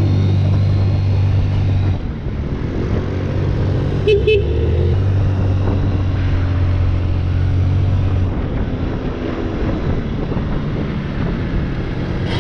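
Moped engine running steadily under the rider, a low drone that eases off about two seconds in and picks back up about three seconds later, with road and wind noise. A brief pitched blip sounds about four seconds in.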